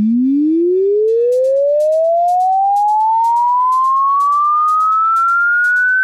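An electronic sine-tone sound effect: one loud pure tone sliding smoothly and steadily upward in pitch, from a low hum to a high whistle. Faint background music runs under it, and a quick ticking beat comes in about a second in.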